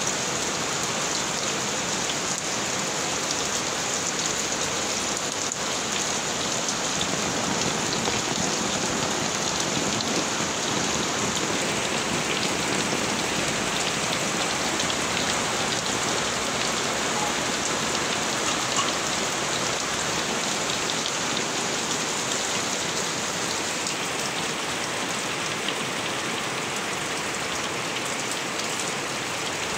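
Steady rain falling into small tub ponds and onto the plants around them, a dense even hiss of drops splashing on the water surfaces.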